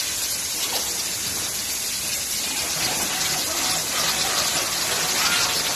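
Steady hissing noise of a railway coach factory workshop. Faint thin machine tones come in during the second half.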